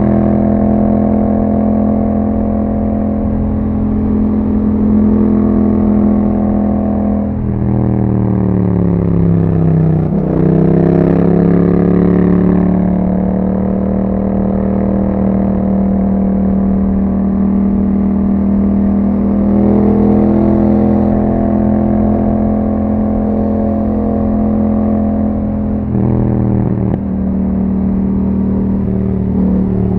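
Yamaha MT-07's parallel-twin engine running through an Akrapovic exhaust at steady revs on the move. A bit over seven seconds in, the revs fall away and then climb back up, and there is another brief drop in revs near the end.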